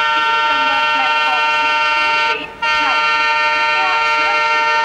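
Diesel locomotive's EMD-type multi-tone air horn on a rebuilt WDM-3A, sounding a long chord of several steady notes. It cuts out briefly about two and a half seconds in, then sounds again.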